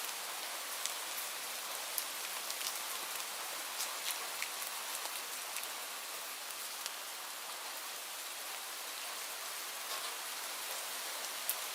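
Light rain falling steadily: an even high hiss with many separate drops ticking on a surface.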